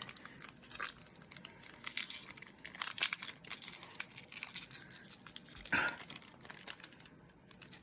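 Trading-card pack wrapper crinkling and tearing as it is opened by hand, with a busy run of irregular crackles.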